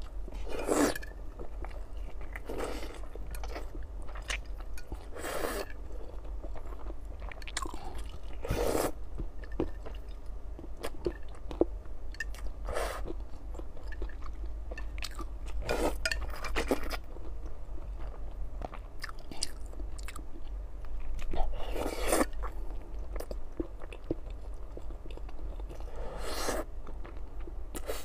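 Close-miked eating: loud slurps of hot-and-sour sweet potato glass noodles in spicy broth, several times, with wet chewing of whole boiled eggs and noodles between.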